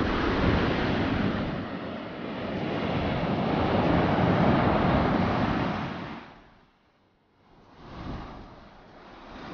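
Ocean surf breaking on the beach, mixed with wind rushing on the microphone. The rushing fades away almost to nothing for about a second two-thirds of the way through, then builds again.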